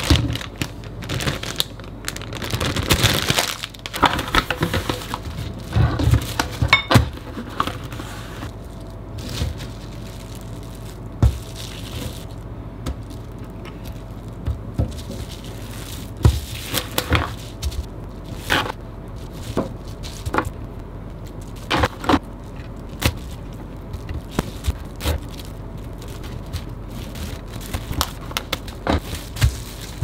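Plastic food wrapping being handled: a zip-top bag crinkling at first, then cling film rustling and crackling as it is pressed and rolled around raw bacon slices, with scattered light clicks and knocks on the counter.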